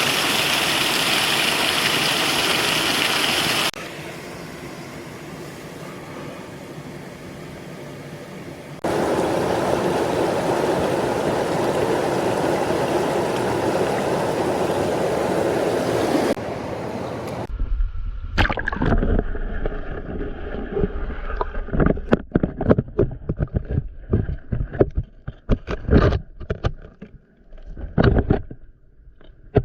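Rushing stream water, loud, then quieter for a few seconds, then loud again, changing abruptly. About halfway through it gives way to a low rumble and a run of sharp knocks and clicks.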